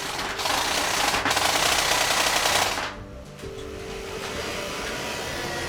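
Airsoft electric gun firing one long full-auto burst of rapid shots, lasting about two and a half seconds and cutting off abruptly.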